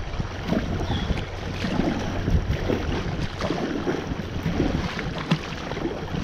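Water splashing and lapping against the bow of a kayak being paddled, in small irregular sloshes, over a steady low rumble of wind on the microphone.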